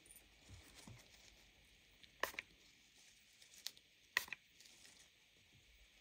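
Quiet room with a handful of short, sharp clicks, the two loudest about two seconds and about four seconds in.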